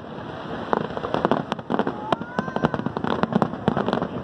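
Aerial fireworks shells bursting in quick succession: many sharp bangs and crackles, several a second, with no let-up.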